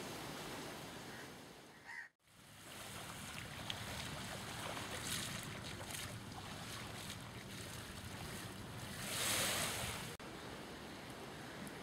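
Sea waves lapping on a sandy beach, a steady wash with one louder surge of surf about nine seconds in. The sound cuts out for a moment about two seconds in.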